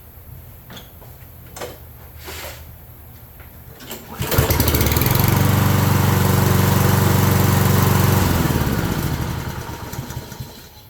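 Kohler single-cylinder engine on a Toro self-propelled lawn mower, started after sitting a while. It catches about four seconds in, runs steadily for a few seconds, then winds down and stops. A few light knocks come before the start.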